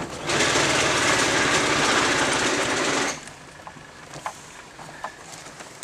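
Peugeot 306's 1.4 TU engine being turned over by the rolling car in a bump-start attempt, a loud, fast mechanical rattle for about three seconds that stops suddenly, followed by a few faint clicks. It does not start: the cam belt has snapped.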